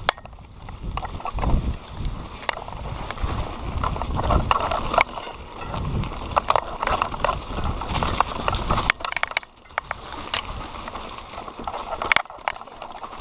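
Mountain bike ridden over a rough dirt singletrack: the bike rattles and knocks over bumps, with a low rumble that eases about nine seconds in.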